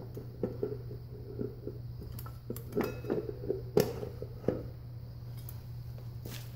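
Metal clinks and knocks as the drive torus of a 1955 Oldsmobile Hydra-Matic transmission is turned by hand and worked onto its splined shaft. The loudest knock comes about four seconds in, and the clinking stops soon after.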